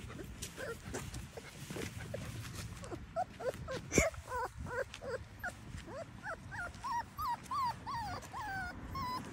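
Puppy whimpering in short, high whines that rise then fall. They come sparsely at first and about twice a second over the last few seconds. A single sharp knock sounds about four seconds in.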